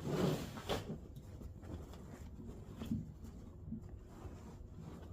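A short scraping rustle in the first second as a seat-back cover or panel is slid out, followed by faint handling noises.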